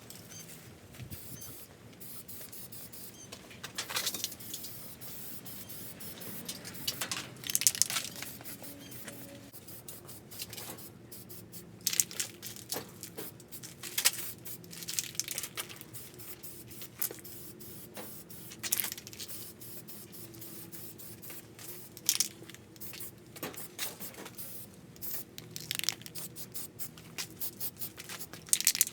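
Aerosol spray-paint can hissing in short, irregular bursts, with small clicks and rattles between sprays.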